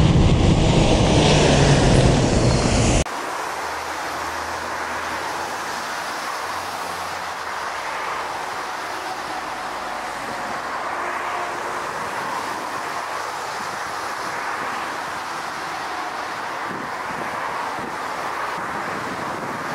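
Jet engines of an Antonov An-124 running loud and deep on a wet runway, cut off abruptly about three seconds in. Then the steady, quieter and thinner jet noise of an Airbus A380 on final approach.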